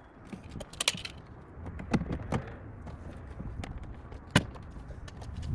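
Scattered sharp clicks and knocks of a tow mirror and its clips being pressed into place on a truck door, the loudest a single knock about four and a half seconds in.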